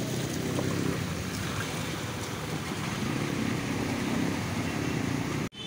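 Mahindra Bolero SUV driving through floodwater: a steady low engine note under the wash and splash of water pushed aside by its wheels. It cuts off suddenly near the end.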